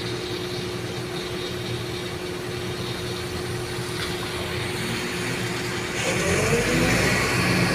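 Diesel engine of a Sumitomo excavator running steadily while it loads soil into a dump truck. About six seconds in, the engine noise grows louder and rises in pitch.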